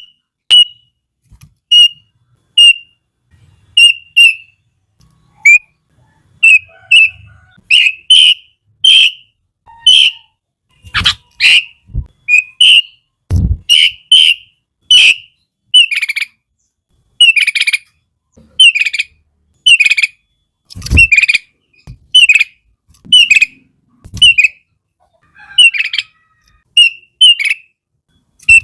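Sooty-headed bulbul calling over and over: short, bright notes, one or two a second. A few dull low thumps come in among them.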